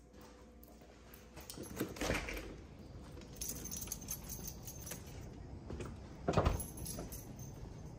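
Light metallic jingling and clicking, with a louder thump about six seconds in.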